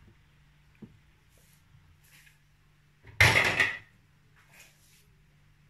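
Kitchen utensils set down with a short rattling clatter lasting under a second, about three seconds in, after a faint click and light scrapes. A low steady hum runs underneath.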